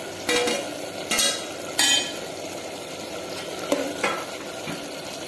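A metal spoon scraping against an aluminium pot while stirring chopped tomatoes into cooking bottle gourd, three sharp strokes in the first two seconds and a couple of softer ones later, over a steady low sizzle from the pot.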